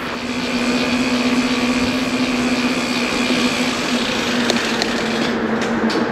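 Steady mechanical hum of a vehicle in motion, holding one pitch over a wash of rolling and wind noise, dipping slightly near the end.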